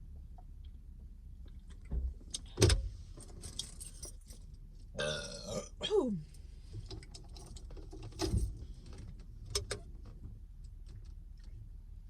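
A burp about five seconds in that drops in pitch at its end, among scattered clicks and knocks of small objects being handled, the sharpest about three seconds in.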